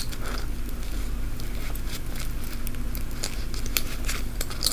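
Scattered small clicks and rustles of hands working a pin into a fabric bag among its clipped-on keychains, over a steady low hum.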